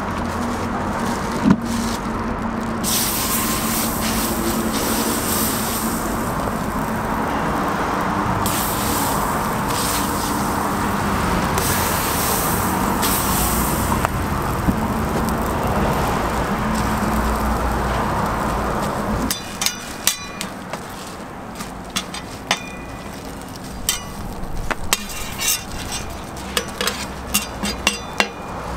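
Bread slices sizzling on a hot, oiled steel flat-top griddle, a steady hiss over a low hum. About two-thirds of the way through, the sound turns suddenly quieter, and a metal spatula clinks and taps against the griddle in sharp, irregular strikes.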